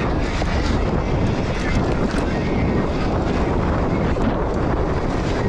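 Wind buffeting the microphone of a pack-mounted action camera while a Trek Stache 7 mountain bike rolls over a dirt singletrack, with steady tyre rumble and a few small clicks and rattles from the bike.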